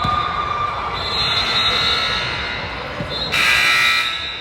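Basketball game in a gym: sustained high squeaks and tones, then a loud shrill blast lasting under a second about three seconds in.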